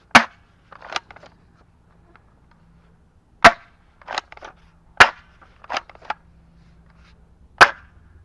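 Spring-powered M870 pump-action gel blaster shotgun fired four times, each shot a sharp crack, with a quieter double clack of the pump being worked back and forward after each of the first three shots.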